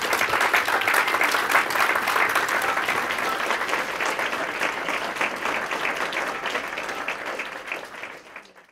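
Audience applauding at the end of a talk: steady dense clapping that slowly thins and fades out near the end.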